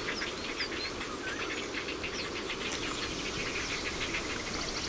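Outdoor woodland ambience: a steady hiss full of rapid small chirps and ticks, with a few short bird chirps in the first second and a quick rhythmic trill near the end.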